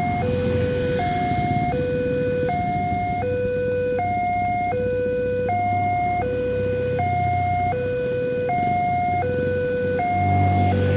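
Railway level-crossing warning siren sounding its two-tone alarm, a low and a high tone alternating evenly, each held just under a second. It warns that a train is approaching and the crossing barrier is down. Underneath runs a low rumble that swells about ten seconds in.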